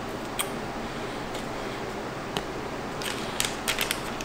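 Pre-cut cookie dough being handled: a few isolated light clicks and taps as pieces are set on a paper-lined metal baking pan. A short run of quick clicks and crinkles comes near the end as a hand goes into the plastic dough package.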